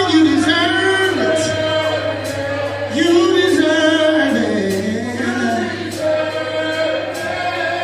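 Choir singing a slow gospel worship song, several voices holding long notes.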